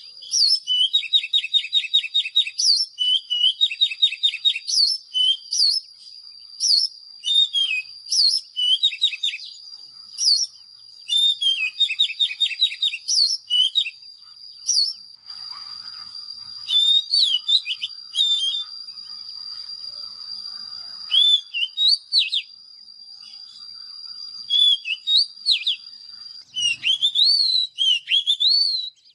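Oriental magpie-robin singing: a run of loud, varied whistled phrases with fast rattling trills, broken by short pauses, over a steady thin high tone.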